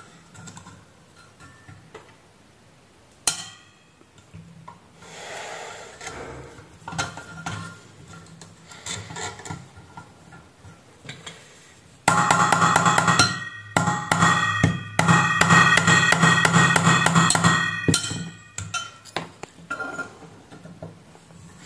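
Metal-on-metal hand-tool noise: pliers gripping and twisting a corrosion-seized screw in a sheet-metal drive case. There is a sharp click about three seconds in, then scraping, and about halfway through a loud grating, squeaking stretch of around six seconds as the stuck screw is forced round.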